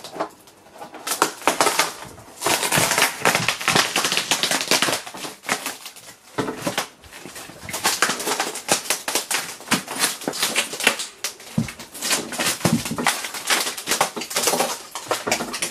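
A glued-in, already-cracked curved LCD panel being pried and peeled off its frame by hand: dense, irregular crackling and snapping of adhesive and cracked glass, in quick runs with brief lulls.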